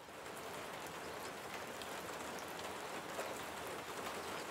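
Steady rain falling, a constant hiss with individual drops ticking through it.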